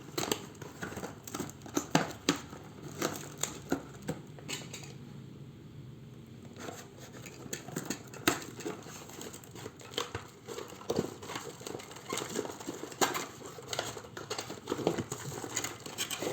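Packaging being handled and opened: plastic and paper crinkling and tearing, with many sharp clicks and rustles and a brief lull about five seconds in.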